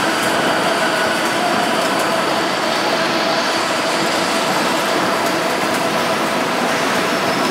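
Steady mechanical din of a citrus sizing machine's outlet conveyor belts running, with a few faint steady tones over an even noise.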